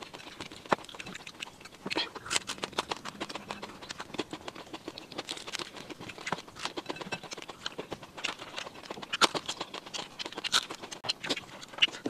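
Close-miked eating: chewing fried quail with wet lip smacks and crunches, an irregular run of sharp clicks and crackles, with a few louder ones about nine and ten seconds in.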